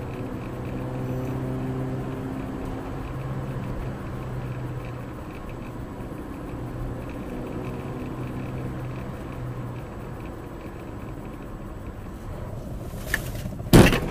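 A car's engine runs steadily while driving, heard from inside the car. Near the end comes a loud sharp bang with a few smaller knocks around it: a collision with another car.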